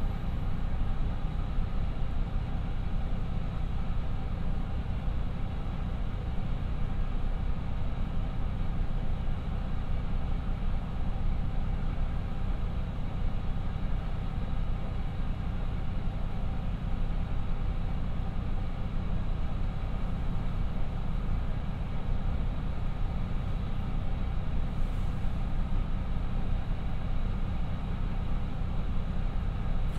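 Twin Niigata DMF13HS diesel engines of a KiHa 54 railcar idling steadily while the car stands still, heard inside the passenger cabin as an even low hum.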